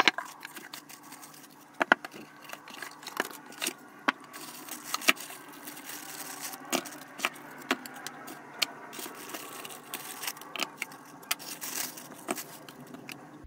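Unboxing handling noise: foam packing and plastic bags rustling and crinkling, with frequent small clicks and knocks as hard plastic parts are lifted out and turned over.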